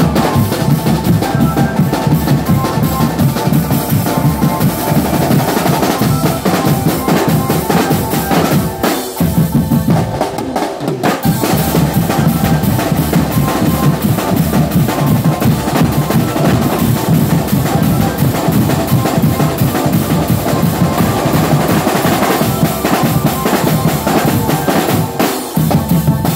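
Drum band playing loud, fast, continuous drumming on marching snare drums, bass drums and tom-tom sets, with cymbal crashes.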